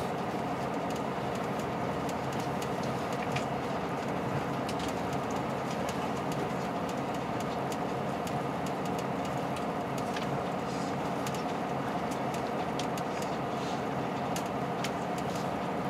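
Steady running noise of a KiHa 183 series diesel express train heard from inside the carriage: engine drone and wheels on the rails, with faint scattered ticks.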